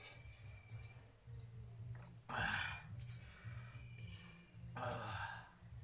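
Two short breathy mouth noises from a person eating, about two and a half and five seconds in, over a low steady hum.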